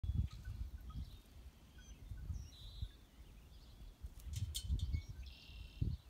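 Wind buffeting the microphone in gusts, with wild birds chirping and whistling in short, faint phrases high above it and a longer warbled phrase near the end. A couple of sharp clicks come about four and a half seconds in.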